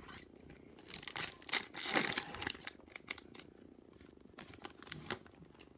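A hockey card pack's wrapper being torn open and crinkled, with a cluster of tearing and rustling in the first couple of seconds and a few lighter crinkles about four to five seconds in.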